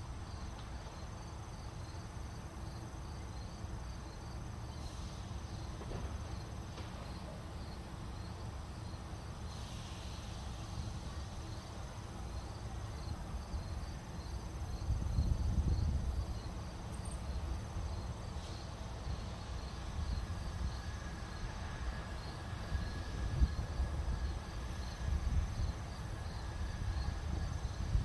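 Crickets chirping in a steady, even rhythm, over a low rumble that swells about halfway through.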